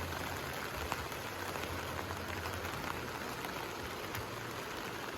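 Light rain falling steadily, a soft even hiss with scattered drop ticks.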